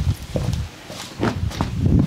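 Hands slapping and patting on skin in a percussive massage, several quick, irregular slaps a second.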